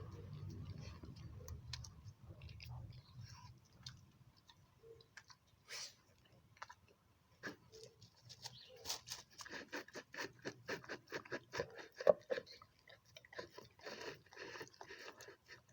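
A dog chewing and crunching food: scattered bites at first, then a quick run of loud crunching chews from about halfway.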